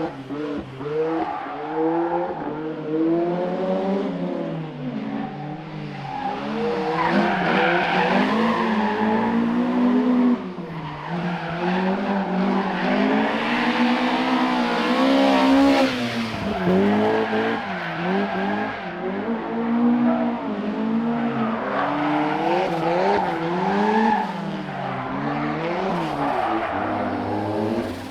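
Rally car engine revving hard on a special stage, its pitch climbing and dropping again and again through gear changes and lifts. The sound cuts sharply about ten seconds in, then the engine note carries on in the same way.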